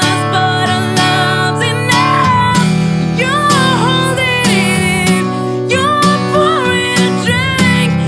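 Background music: strummed acoustic guitar with a wavering melody line over it.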